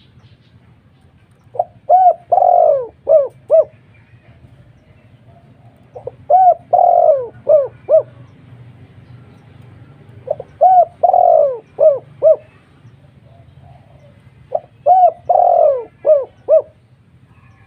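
Pet dove cooing its song four times, about every four and a half seconds: each phrase is two short coos, a longer falling coo, then two or three more short coos.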